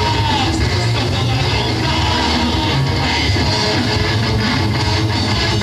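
A metal band playing live: distorted electric guitars over bass and drums in a loud, dense, unbroken wall of sound, with a guitar note sliding down just after the start.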